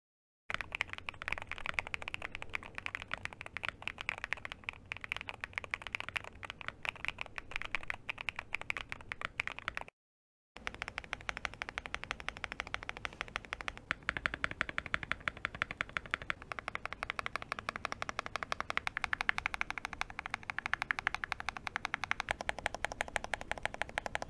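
Fast typing on a mechanical keyboard fitted with Akko Botany long-pole linear switches, in an aluminium-plate, fully foamed TKD Cycle 7 board: a dense run of mid-pitched clacks, neither deep nor muted. The typing stops for about half a second around ten seconds in, then resumes.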